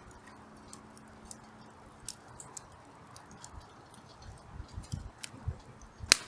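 Hardwood campfire crackling, with scattered sharp pops and one louder crack near the end.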